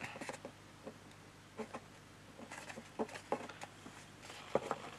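Light taps and rustles of cardstock being handled and pressed into place as a glued paper piece is positioned. Scattered faint clicks, a little louder about three seconds in and near the end.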